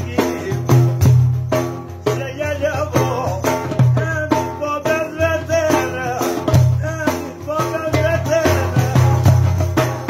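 A man singing a folk song while beating a large frame drum with jingles (def) in a regular rhythm: deep thumps from the drum head, each with a jingle rattle, under the sung melody.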